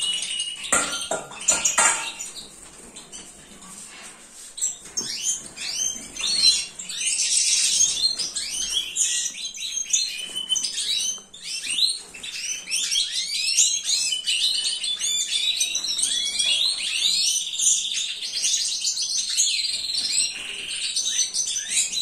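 Caged goldfinches and canaries chirping and twittering, many short calls overlapping densely after a quieter first few seconds. A few light clinks sound in the first two seconds.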